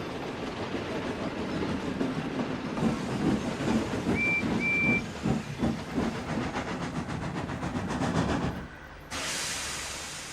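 Steam locomotive running on rails, with rhythmic chuffing and two short high whistle peeps about four seconds in. Near the end the running stops and a sudden loud hiss of steam is let out.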